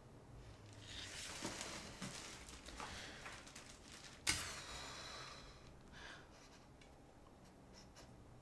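Soft rustling and handling noise, with one sharp click a little over four seconds in that rings briefly, then a few faint ticks near the end.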